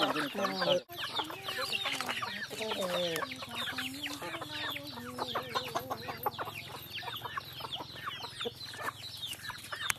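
Free-range chickens feeding: a constant stream of short, high chick peeps, with hens clucking lower underneath.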